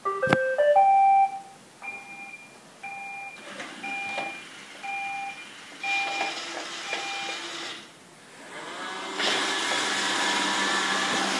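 iRobot Roomba 770 robot vacuum playing a quick rising run of electronic tones, then a string of about seven short, evenly spaced beeps. Its vacuum motor and brushes then spin up and run steadily for the last few seconds.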